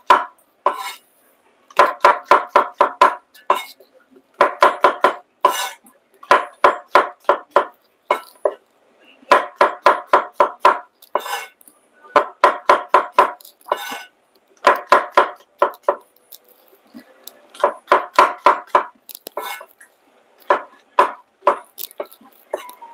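Quick runs of sharp kitchen clatter, several strikes a second in bursts of about a second with short pauses between them: a utensil working against cookware.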